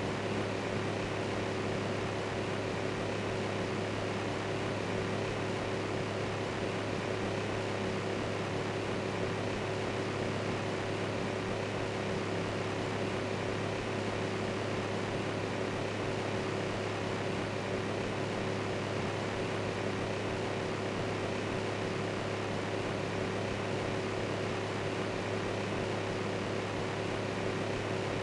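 Electric fan running steadily: an even rush of air with a low hum underneath and no change in speed.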